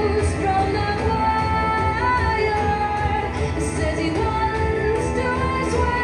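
Recorded song with a female voice singing over a steady bass accompaniment, played over an auditorium's sound system as dance music.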